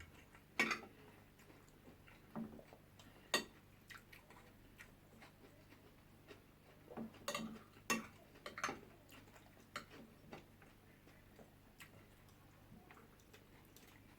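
Scattered soft clicks and taps of cutlery against plates during a meal, irregular and a few seconds apart, with the sharpest taps about half a second, three seconds and eight seconds in.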